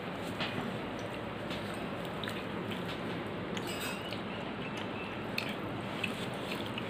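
Eating by hand: fingers squishing and mixing wet rice and dal on a metal plate, with soft chewing and lip smacks, as scattered small clicks and squelches over a steady background hiss.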